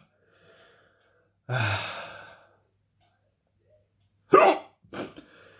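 A man's long, heavy sigh about a second and a half in, an exhale that fades away, then two short, sharp sounds from his throat near the end, the louder first. It is his breathing while his mouth burns from a superhot pepper.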